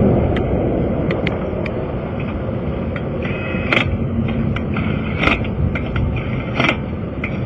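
Steady rumble of passing interstate traffic, with scattered clicks and knocks from tire-change tools and parts being handled; the sharpest come a little under four seconds in, at about five seconds and at about six and a half seconds.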